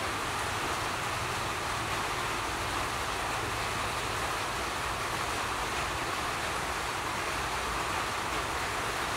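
Steady, even hiss of background noise with no distinct events.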